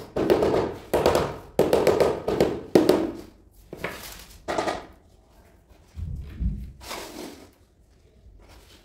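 A run of short, rough scraping strokes on a tile floor, about five in the first three seconds, then a few fainter ones and a dull thump about six seconds in.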